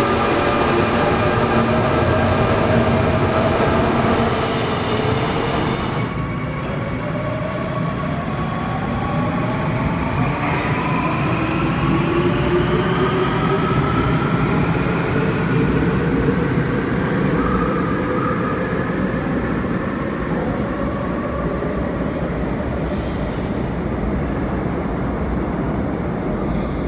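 Electric subway trains running. In the first seconds a train comes on with a rising motor whine and a brief hiss. After an abrupt change about 6 s in, a train moves past the platform screen doors of an underground station and pulls away, its traction motors whining in several tones that climb slowly in pitch as it speeds up.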